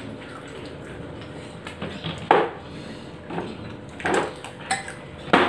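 Eating sounds at a table: chopsticks working instant noodles on a plastic tray, with three short, louder noisy sounds about two, four and five seconds in.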